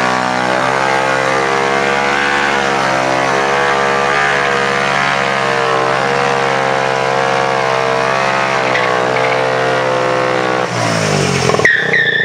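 Car engine held at high, nearly steady revs for about ten seconds, then the revs drop about eleven seconds in, followed by a few short high-pitched squeals.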